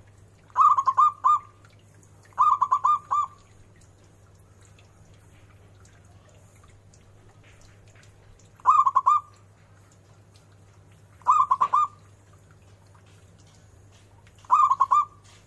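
Zebra dove (perkutut) cooing: five short phrases a few seconds apart, each a quick run of three or four notes.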